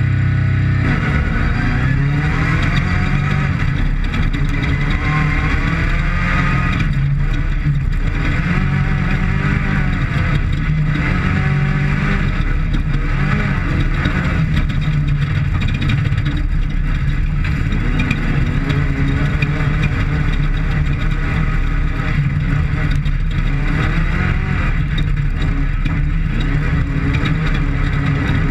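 Off-road desert race vehicle's engine running hard and revving up and down over and over, with rough road noise underneath.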